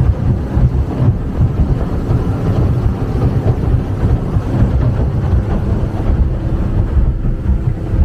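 Steady low engine rumble of a moving vehicle, with wind buffeting the microphone.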